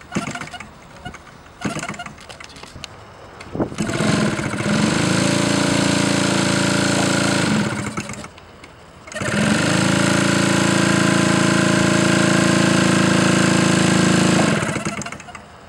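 Small aircraft engine on a test stand running up: after a few knocks, it rises to a steady, high-pitched drone for about four seconds, falls away, then rises again and holds for about five seconds before winding down near the end.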